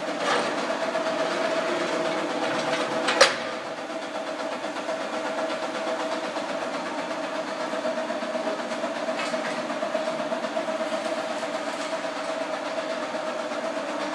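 Vacuum metallizing machinery running: a steady mechanical hum with one strong, even mid-pitched tone. A sharp metallic knock sounds about three seconds in.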